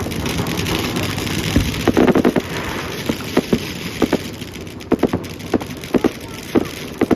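Fireworks crackling, with a dense burst of sharp pops about two seconds in and then irregular single pops over a hissing crackle.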